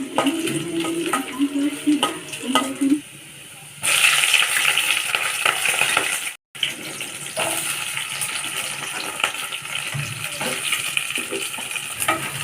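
Food sizzling in hot oil in a pan, with a spoon or spatula clicking against the pan as it is stirred. A low hum sits under the first three seconds, the sizzle comes in loud about four seconds in, cuts out for a moment around six seconds, and then carries on.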